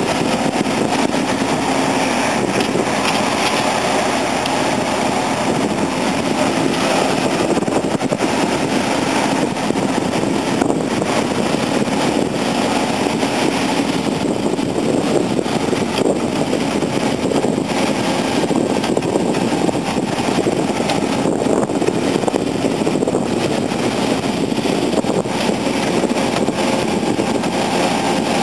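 Heavy diesel engines of a Komatsu D65EX bulldozer and a JCB 3CX backhoe loader running steadily during the recovery.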